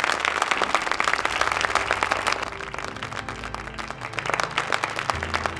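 A crowd applauding, dense steady clapping throughout. About halfway through, low sustained music tones come in under it.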